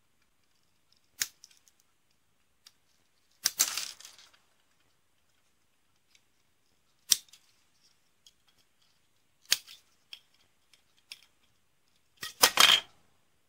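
Side cutters snipping parts off a plastic model kit's sprue: a handful of sharp snips a few seconds apart, two of them followed by a brief rattle of plastic.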